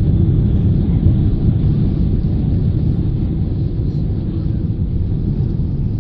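Steady low rumble of a Boeing 777-300ER's engines and airflow, heard from inside the economy cabin.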